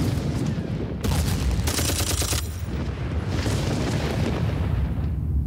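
Battle sound effects: a deep, continuous booming rumble like distant artillery and explosions, with stretches of crackling gunfire-like noise that cut in and out abruptly about a second in and again around two and a half seconds.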